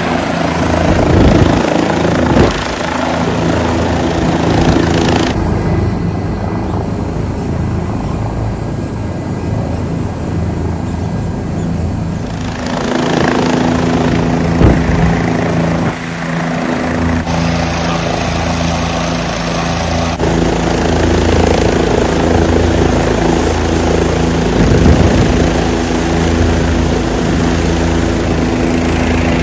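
Helicopter running close by, its main rotor and engine giving a loud, steady drone. The sound shifts abruptly a few times between edited shots.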